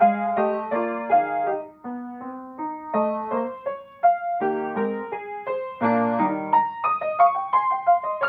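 Upright piano played solo in a classical style: a brisk passage of broken chords and quick note runs, with a deep bass chord struck about six seconds in.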